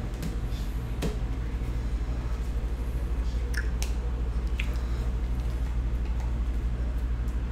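Trading cards being handled: a few soft clicks and slides of the cards, over a steady low hum.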